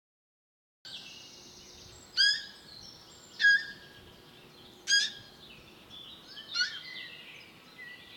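A deer calling with four short, sharp calls that drop steeply in pitch, about one and a half seconds apart, over steady birdsong. The sound begins about a second in, after silence.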